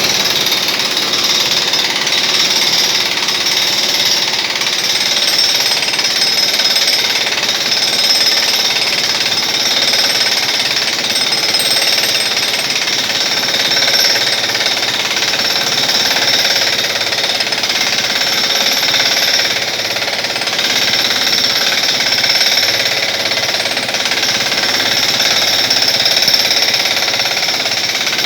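Pneumatic impact wrench hammering steadily without a break, driving a clamp's screw to press a rubber-metal bushing into a BMW E34's rear subframe.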